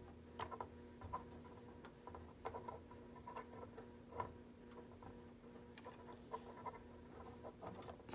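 Faint, scattered clicks and taps of plastic LEGO parts being handled as the battle droid rack of a LEGO MTT is folded out, over a steady faint hum.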